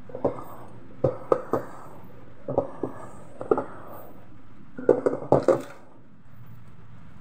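A hand mixing minced meat and flour dough in a metal pot, giving a series of short, irregular knocks against the pot, with a dense cluster of them about five seconds in.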